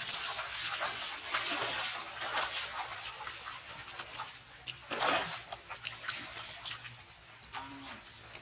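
Water splashing and sloshing in a shallow pool as people wade and move through it, with the loudest splash about five seconds in and the splashing dying down near the end.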